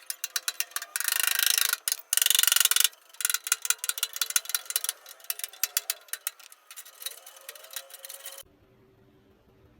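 Rapid, irregular mechanical clicking and ticking, with two short loud bursts of noise about one and two seconds in; the clicking thins out and cuts off suddenly near the end.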